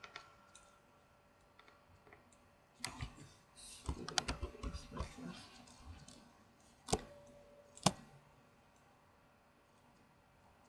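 Computer keyboard keystrokes and clicks picked up by the microphone: a cluster of quick taps a few seconds in, then two sharp single clicks about a second apart.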